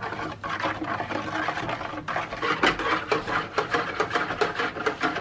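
Wire whisk beating soapy water in a plastic bowl: quick, rhythmic splashing and clicking strokes, several a second, growing busier about halfway through.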